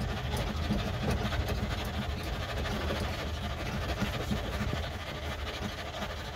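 Car engine cranking over on its starter with a steady, rhythmic churn as it is coaxed to start.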